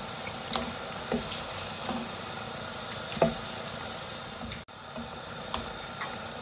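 Breadcrumbed potato balls deep-frying in a pot of hot oil, a steady sizzle, with the slotted metal skimmer clicking against the pot now and then as the balls are turned and lifted out.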